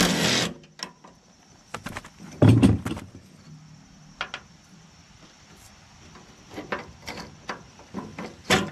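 A DeWalt cordless impact driver runs in a short hammering burst, spinning a nut off a stud on a steel mower deck. Then scattered clicks and knocks of loose metal parts handled on the deck, with a louder low thump about two and a half seconds in.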